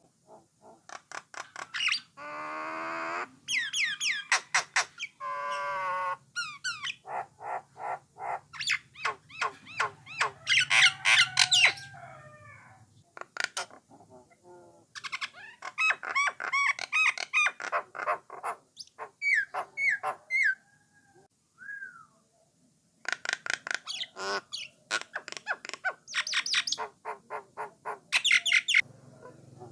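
Jalak nias (jalak coklat) singing a long, varied song: fast runs of repeated chattering notes, whistled phrases and harsh squawking calls, with a short pause about two-thirds of the way through.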